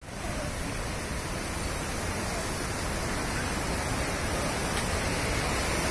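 Water overflowing a dam's long spillway and falling down its face, heard as a steady rushing noise.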